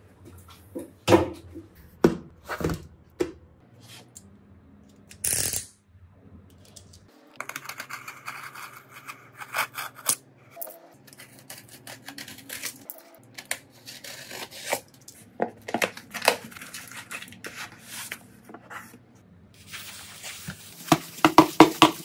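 Small hard objects handled on a repair bench: several sharp clicks and knocks, a short high hiss about five seconds in, then a long stretch of scratchy tearing with many small clicks.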